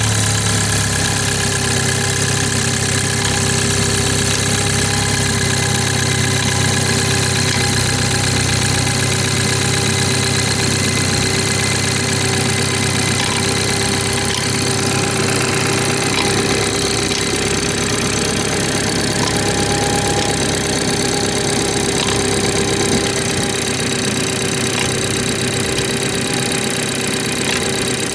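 BMW 430i xDrive's B46/B48 four-cylinder engine idling just after a cold start, with a steady whine above the engine note that settles slightly in pitch in the first second: the weird noise this engine makes on cold start in cold weather.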